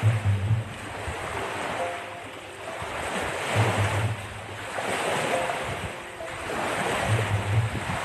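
Small lake waves washing in, in swells every second or two, with wind buffeting the microphone.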